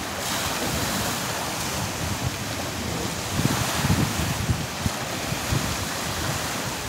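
Wind buffeting the microphone in uneven gusts over a steady wash of choppy sea water.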